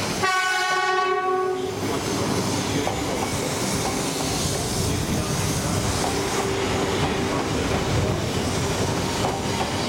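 E3-series Shinkansen train sounding a single horn blast of about a second and a half as it enters the station, then the steady noise of its cars rolling past on the rails.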